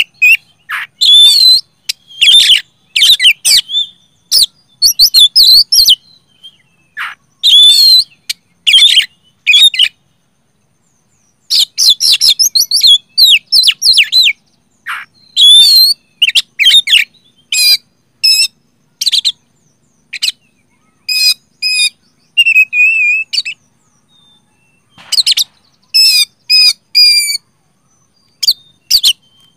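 Oriental magpie-robin singing loudly in quick phrases of varied whistles and trills, with two short pauses; the later phrases are runs of rapid, evenly repeated notes.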